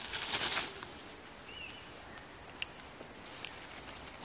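Leafy tree branches rustling as fruit is picked from them, loudest in the first second, with a sharp snap a little after halfway. A steady high-pitched insect drone runs underneath, with one short bird chirp.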